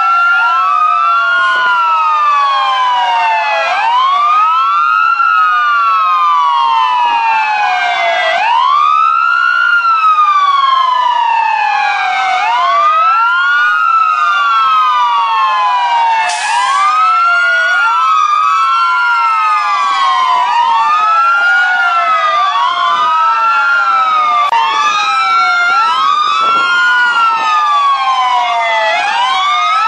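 Several fire truck sirens wailing at once. Their rising-and-falling tones overlap out of step, each sweep lasting a few seconds.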